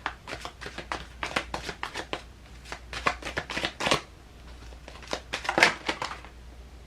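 Tarot cards being shuffled by hand: a run of quick, sharp card snaps and flicks that come in clusters.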